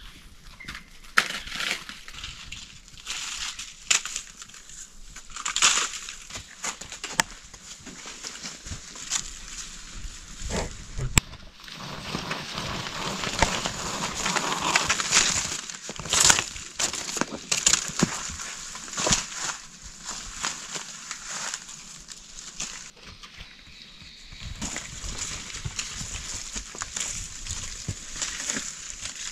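Dry fallen leaves crunching and rustling as someone moves through them while handling and pulling a nylon rope between trees: irregular crackles and scrapes, busiest in the middle.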